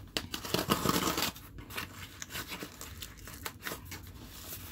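Packing tape on a cardboard box being slit and torn open, with a dense ripping burst over the first second or so, then scattered short scratches and clicks as the tool scores along the tape.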